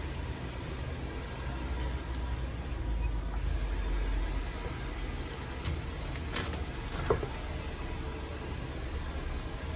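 Chef's knife working through a fresh mackerel on a wooden chopping board, with a couple of sharp clicks of the blade against the board about six and seven seconds in, over a steady low background rumble.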